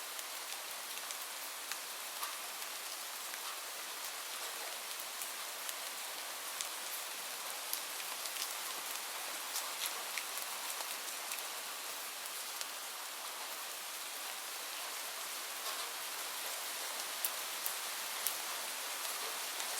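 Light rain falling steadily: an even hiss with scattered sharp drop ticks, a few louder ones near the end.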